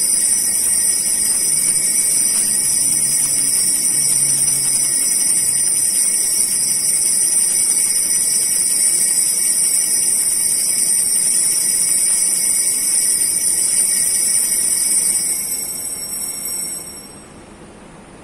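Altar bell rung at the elevation of the host during the consecration at Mass: a steady, high-pitched ringing that fades out about fifteen seconds in.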